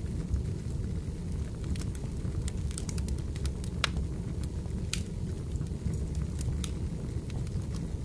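Wood fire crackling: irregular sharp pops and snaps over a steady low rumble, with a couple of louder pops around the middle.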